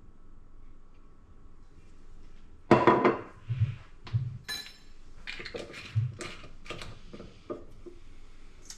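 Kitchen utensils clinking and knocking: a sharp clink with a short ring about three seconds in, then a string of lighter knocks and taps as a measuring spoon touches the mixing bowl and an oil bottle is set down on the counter.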